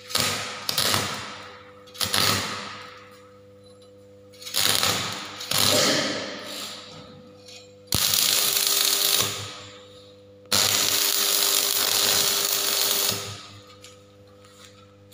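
Stick (manual metal arc) welding with a consumable electrode. The arc is struck several times in short crackling bursts, then held for two longer runs of steady crackling and hissing. A steady low hum runs underneath.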